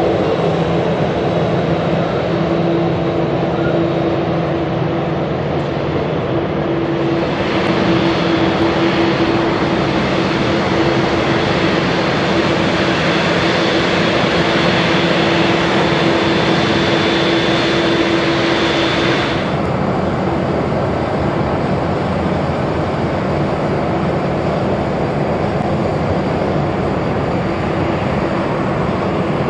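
Boeing 787-10's Rolls-Royce Trent 1000 TEN turbofans running at low power as the airliner taxis, a continuous jet rumble with a steady low hum. A higher hiss with a thin whine joins about a quarter of the way through and cuts off suddenly about two-thirds in.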